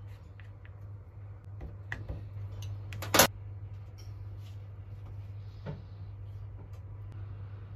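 Light clicks and taps of a metal fork pricking pastry dough and dipping into a ceramic bowl of cooked apple, with one sharper clink about three seconds in. A steady low hum runs underneath.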